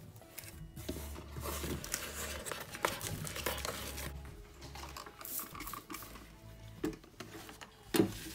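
Soft background music, with crinkling and scraping as a shrink-wrapped box of colored pencils is handled and slid against its cardboard shipping box. A sharp knock comes near the end.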